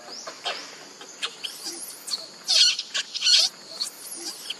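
Newborn macaque screaming: a run of shrill, high-pitched squeals, with two louder, longer screams in the middle.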